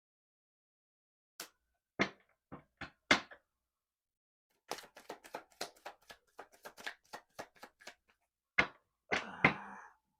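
Tarot deck being handled and shuffled: a few separate sharp clicks, then a quick run of card clicks for about three seconds, and a short rustle near the end.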